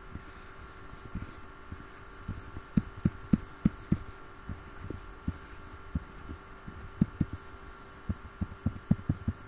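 Soft, low taps of a pen on a drawing tablet as lines are drawn, coming in quick runs a few seconds in and again near the end. A steady faint hum runs underneath.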